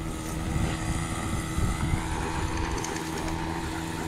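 An engine running steadily at a constant pitch, with some uneven low rumbling over it.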